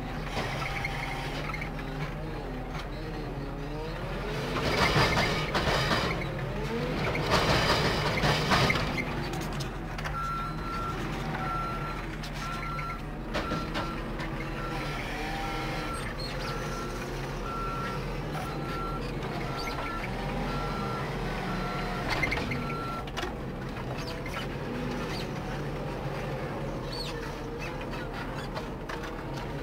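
Diesel engines running, heard from inside a tractor cab while a JCB 536-60 telehandler loads a muck spreader alongside. From about ten seconds in, the loader's reversing alarm beeps steadily, about three beeps every two seconds, for some twelve seconds. Two louder rushing surges come in the first ten seconds.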